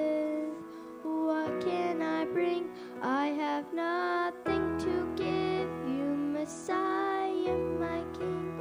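Music: a song with a voice singing a melody over sustained low accompaniment notes that change every few seconds.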